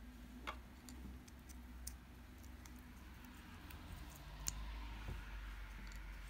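Scattered light clicks and taps of small plastic parts as an impact driver's trigger switch unit is taken apart by hand, with two sharper clicks, one about half a second in and one about four and a half seconds in.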